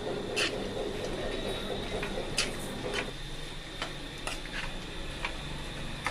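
Steel spatula stirring okra in a nonstick kadai, clicking and scraping against the pan at irregular intervals, about six sharp ticks over the stirring.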